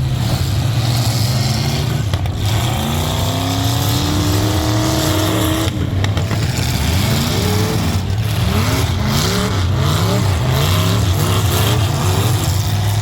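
Several truck engines revving hard over and over, their pitch climbing and dropping in quick succession over a steady low hum.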